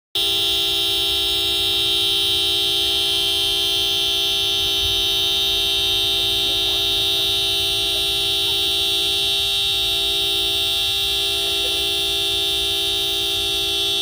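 Car horn held down in one unbroken, steady blare, sounded by a dog pressing on the steering wheel with its paws.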